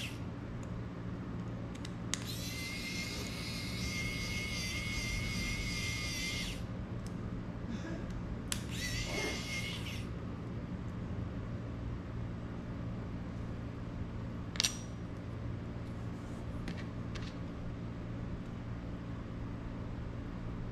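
High-pitched electronic whine from a pen-style soldering iron heating against a joint, in two stretches: about two seconds in to past six seconds, and again briefly around nine seconds. A steady low hum runs underneath. One sharp tap comes about two-thirds of the way through.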